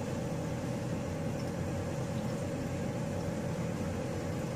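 Steady mechanical hum over an even rushing noise, unchanging throughout.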